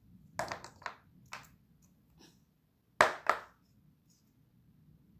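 Small plastic play-dough tools clacking against a plastic tray: a few sharp knocks in the first second and a half, then two louder ones about three seconds in.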